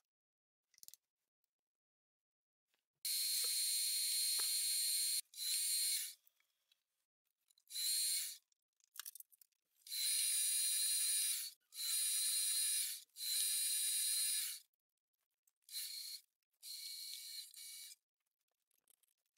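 Milling machine spindle running with a high-pitched whine while a drill bit cuts holes in an aluminium plate. The sound comes in about eight short stretches that start and stop abruptly, with silence between them.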